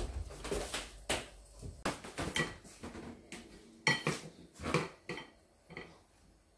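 A child's fork and knife clinking and scraping on a plate, a string of separate sharp clinks, some with a brief ring, loudest about four to five seconds in.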